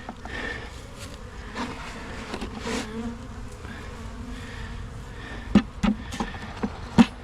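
Honeybees buzzing steadily around an open hive, with a few sharp knocks near the end.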